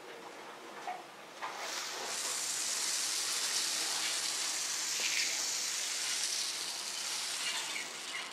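Small foam beads poured from a plastic bag onto slime in a bowl: a couple of light knocks, then a steady hissing rush from about a second and a half in that tails off near the end.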